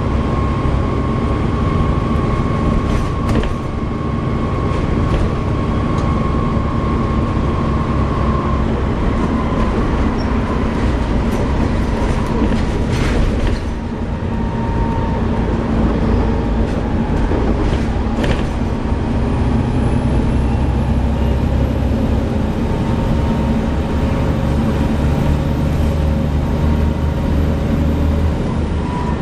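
Volvo B7TL double-decker bus running on the road, its diesel engine and road noise carrying through the upper deck with occasional rattles. A slight cooling-fan whine sits over the engine sound, plainest in the first third; a faint high whistle rises slowly later on and stops near the end.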